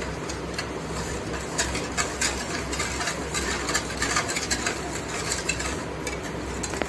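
Wire whisk beating a thin milk mixture in a stainless steel bowl, its wires clicking and scraping against the steel in quick irregular strokes, over a steady low hum.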